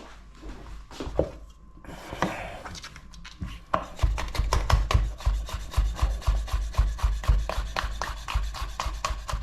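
Kitchen knife slicing bell peppers into thin strips on a cutting board: a few scattered knocks at first, then from about four seconds in a fast, even run of knife strokes hitting the board, about four a second.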